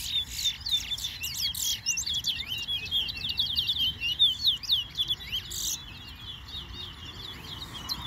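Caged songbird singing a fast, unbroken run of high, sharply down-slurred notes that falls away about six seconds in.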